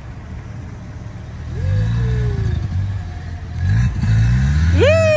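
1983 Mazda RX-7's 12A two-rotor rotary engine idling, then revved three times, each blip a quick rise in pitch that falls away.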